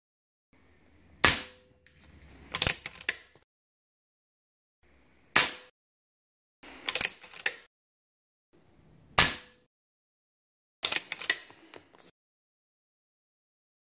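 Ataman M2 Ergonomic .25 calibre PCP air rifle fired three times, about four seconds apart, each a sharp crack. After each shot comes a quick run of metallic clicks as the action is cycled to chamber the next pellet.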